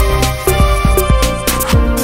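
Background music with a steady beat: regular drum strokes with deep, falling bass notes under sustained chords.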